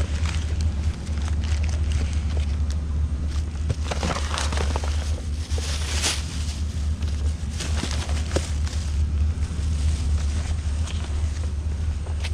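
Steady low engine drone from parking-lot cleaning equipment, with scattered rustling and crackling of swept debris, busiest about four to six seconds in.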